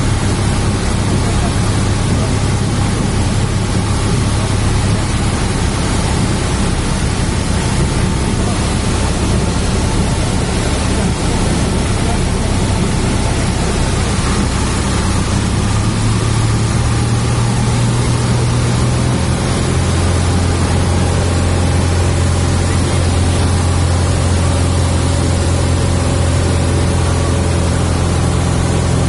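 Cessna 172's piston engine and propeller droning steadily, heard loud inside the cockpit. The engine note shifts about halfway through and settles lower about two-thirds of the way in.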